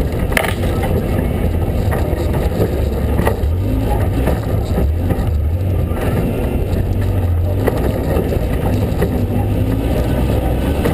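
Ford Ranger pre-runner's engine running steadily as the truck drives over dirt roads, its pitch climbing near the end. A few sharp knocks break through, about half a second in, around three seconds and around eight seconds.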